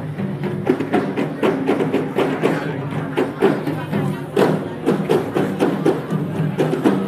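Drum-led music for a pencak silat display: quick drum strokes, several a second, over a steady pitched drone line.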